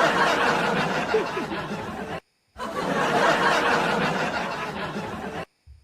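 Two stretches of breathy laughter, each about three seconds long, with a brief silence between them.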